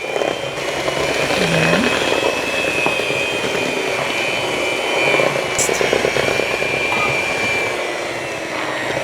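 Electric mixer running steadily on low speed with a steady motor whine, beating the dry ingredients into oatmeal cookie dough.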